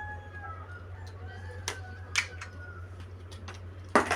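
A few faint clicks, like small plastic toy pieces being handled, over a steady low electrical hum.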